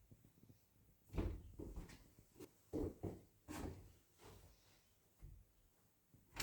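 Household handling sounds during cleaning: a series of short knocks and clunks, about half a dozen, irregularly spaced, the loudest just after a second in and a sharp one at the very end.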